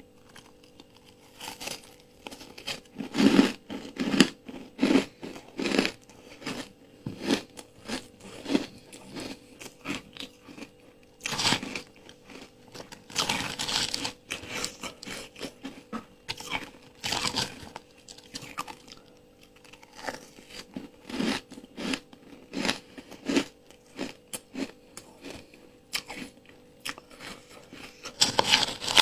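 Close-up crunching and chewing of ice coated in matcha powder: a run of sharp crunches as the ice is bitten and chewed, loudest in clusters about three seconds in, around eleven to fourteen seconds, and again near the end.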